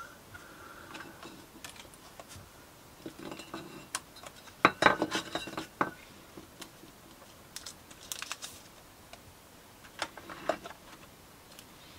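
Rummaging: scattered light clicks and rustles of small things being handled, with a louder cluster of clicks about five seconds in.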